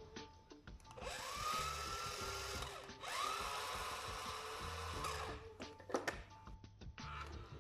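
Small electric motor whirring in two bursts of about two seconds each, its pitch rising as it spins up and then holding steady, with a few clicks near the end.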